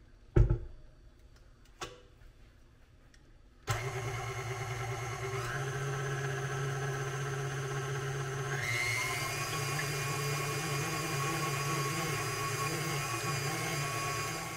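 Two sharp knocks, then a small electric motor switches on abruptly and runs steadily with a low hum, its higher whine stepping up in pitch twice.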